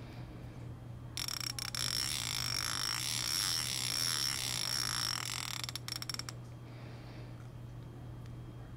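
Daiwa 2021 Zillion SV TW baitcasting reel's drag clicker buzzing as the drag slips, a fast continuous clicking with a steady high ring in it. It starts about a second in with a few separate clicks, runs for about five seconds and stops with a few more clicks.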